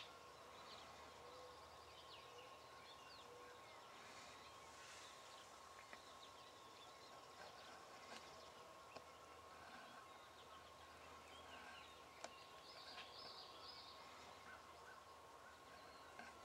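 Near silence with faint, scattered songbird chirps and twitters, over a faint steady high tone.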